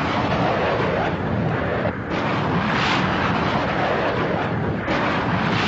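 Dense, loud battle noise: explosions and heavy gunfire running together into a continuous din. It shifts abruptly about two seconds in and again near the end.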